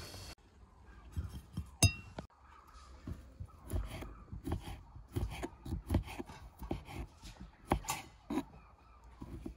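A kitchen knife slicing peeled chestnuts on a wooden cutting board, heard as a run of uneven short knocks, a few a second. A single ringing clink comes about two seconds in.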